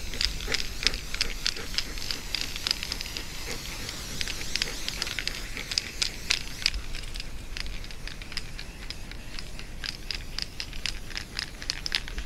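Aerosol can of temporary hair-colour spray hissing as it is sprayed onto a dog's coat, with many short sharp clicks over the hiss.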